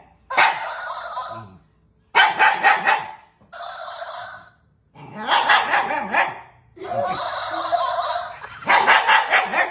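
A dog barking and yowling in about six bursts, some drawn out for a second or more, with short pauses between them.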